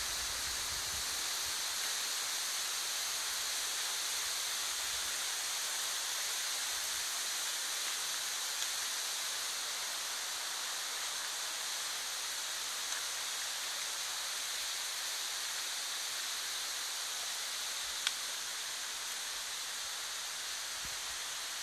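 Mountain stream running over rocks: a steady rushing hiss, with a few faint clicks.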